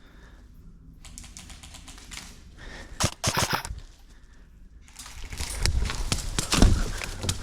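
Airsoft guns firing, a short cluster of sharp snapping shots about three seconds in. Near the end, a louder rustling stretch with knocks and thumps.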